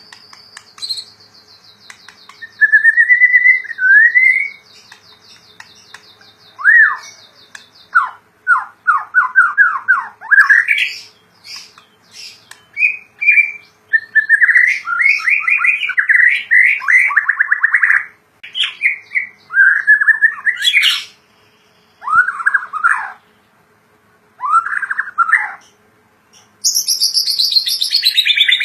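White-rumped shama singing a varied song: whistled phrases, fast trills and sweeping notes mostly between 1 and 5 kHz, separated by short pauses, with a long note falling from high to lower pitch near the end.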